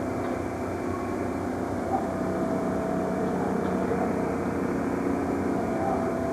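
Steady, unbroken drone of a running vehicle or engine, with a faint steady tone over it.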